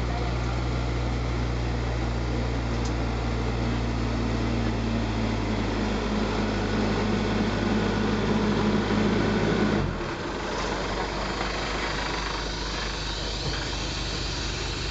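Asphalt paver's diesel engine running steadily with a low hum, growing a little louder toward the middle. The sound changes abruptly about ten seconds in to a noisier machine sound with no steady hum.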